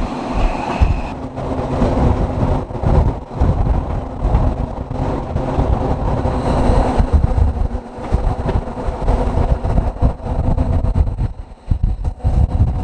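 Rhaetian Railway electric train running along the track, a steady rumble of wheels and motors mixed with wind buffeting the microphone out of an open window. The sound briefly dips near the end.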